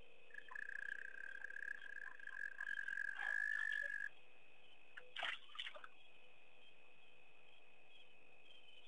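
Crickets chirring steadily in a night chorus, joined by a high, steady trill for about the first four seconds. Two short, sharp noises come about five seconds in.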